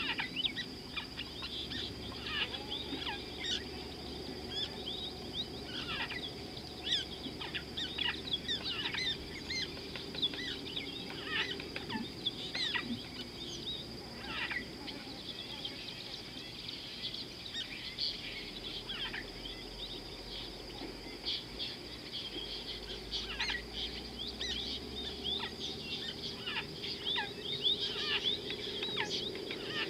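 Several birds calling at once, a busy chorus of short chirps and whistles, over a steady high-pitched hum.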